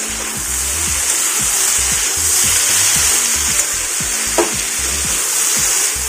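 Green beans and potatoes sizzling in oil in a kadai while a spatula stirs and scrapes them around the pan in repeated strokes, with one sharper knock of the spatula against the pan about four seconds in.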